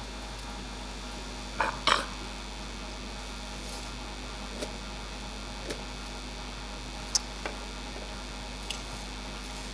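Scattered clicks and knocks over a steady background hiss and hum: a loud double knock about two seconds in, then a few lighter, single ticks spread over the rest.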